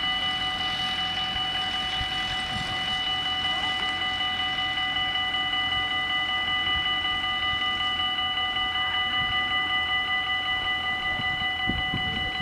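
Dutch level-crossing warning bells ringing continuously in a fast, even ring, sounding as the crossing's warning while the barriers are down. A low rumble sets in near the end.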